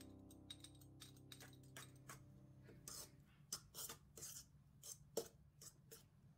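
Metal fork scraping and clicking against a stainless steel mixing bowl while stirring a crumbly bulgur mixture: a string of short, irregular scrapes and taps, most of them in the second half. A piano chord fades out underneath in the first seconds.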